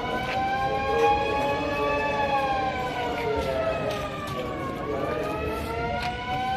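Building alarm siren wailing for an evacuation. Its pitch falls slowly for about four seconds, then rises again near the end.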